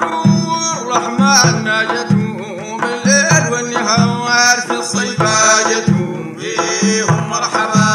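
Sudanese madeeh (Sufi praise song): a voice singing over hand drums that beat a steady pattern of paired strokes, about one pair a second.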